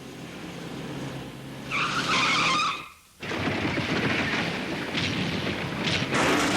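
Cartoon action sound effects: a low engine hum that builds for a second or two, a loud skidding screech about two seconds in, a sudden brief silence, then a long noisy crashing rumble with a few sharp hits.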